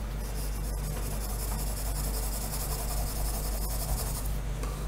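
Pencil lead hatching on drawing paper: a steady, soft scratching as shading is laid in, over a low steady hum.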